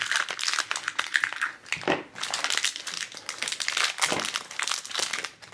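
Crinkling and crackling of a thin, shiny plastic wrapper being peeled off a small toy and crumpled by hand, a dense run of crackles that dies away near the end.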